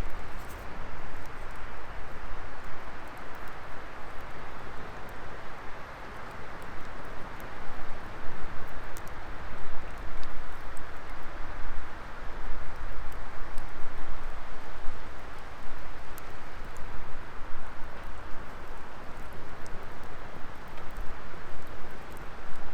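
Wood fire burning: a steady rush of flames with scattered sharp crackles and pops.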